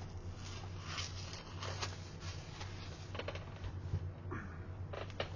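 Rustling, light taps and scrapes from hands handling a leather-textured hardcover rulebook, in short irregular bursts over a steady low hum.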